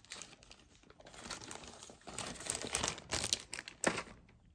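Jewelry packaging being handled by hand: irregular rustling that gets busier in the second half, with a sharp click near the end.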